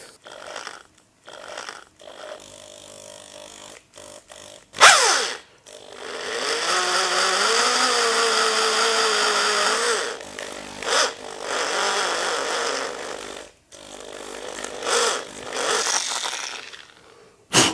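Electric hand drill turning an end mill through a guide bracket, milling a cast-iron face on an engine so a bolt can seat deeper. The drill starts and stops several times, the longest run about four seconds near the middle, its pitch wavering under load.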